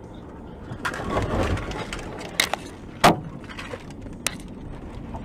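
Road collision just ahead of a moving car, picked up from inside it: steady road noise, a rising rumble about a second in, then several sharp bangs and knocks, the loudest about three seconds in.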